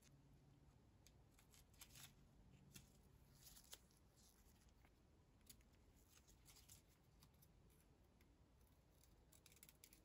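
Near silence with faint, scattered rustles and light clicks of gloved hands handling a potted plant's leaves and stems.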